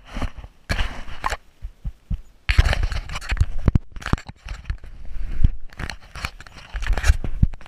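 Irregular knocks, scrapes and crinkling rustles, like things being handled and moved about close to the microphone.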